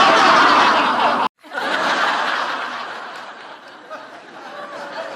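Crowd laughter sound effects, a canned audience laugh track. A loud burst of crowd laughter cuts off abruptly after about a second. After a brief gap a second crowd laugh starts and gradually fades away.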